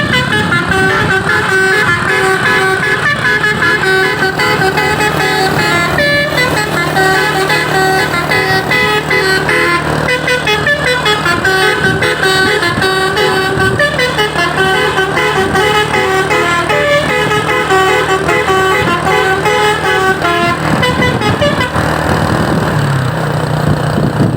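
Truck's 'telolet basuri' musical air horn playing a tune, a continuous run of short stepping notes, over a steady low hum.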